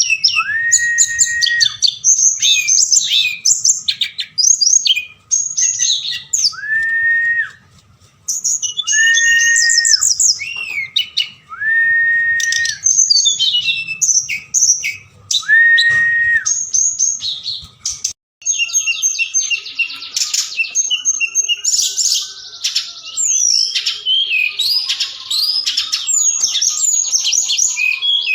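Tledekan gunung song: rapid high chirps and trills, broken in the first half by five level whistled notes about a second long each. After about 18 seconds the song becomes a dense, unbroken twittering.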